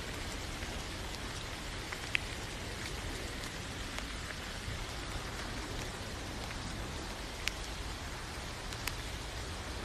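Steady rain falling, an even hiss with a few single drops ticking out more sharply, the clearest about two seconds in and again near seven and a half seconds.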